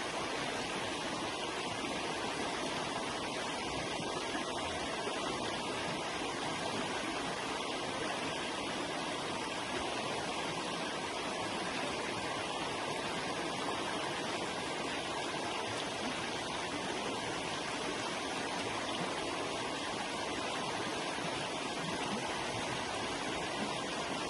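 River water rushing steadily over rocks, an even, unbroken wash of flowing-water noise.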